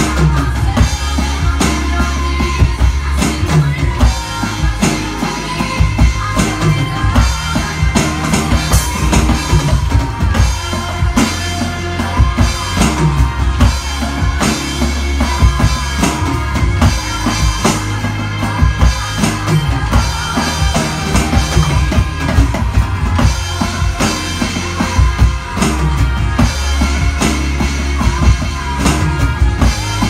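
Electronic drum kit played along to a recorded pop song: steady kick, snare and cymbal strokes over the song's bass and a sung vocal line.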